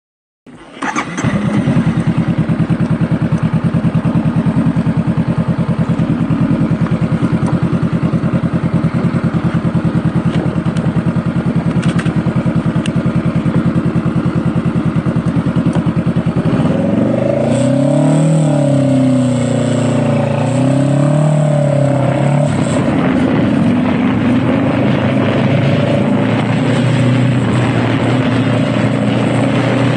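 Honda Rebel motorcycle engine coming in just after the start and idling with a steady, fast pulse. About sixteen seconds in it revs up and down several times as the bike pulls away and changes gear, then settles into a steady run at a higher note.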